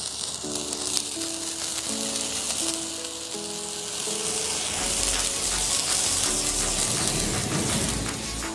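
A large bundle of sparklers burning together with a dense fizzing crackle, over background music with a simple melody. About five seconds in, a low rumble joins and the sound grows a little louder.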